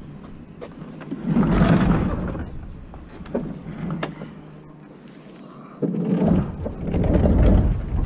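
A large fridge being shifted and pushed against the back of a minivan: two loud rumbling scrapes and bumps, one about a second in and another starting about six seconds in, with small knocks between.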